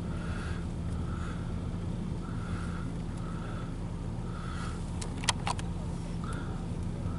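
Loaded autorack freight train rolling past: a steady low rumble of wheels on rail, with a higher sound that recurs about every two-thirds of a second. A few sharp clicks about five seconds in.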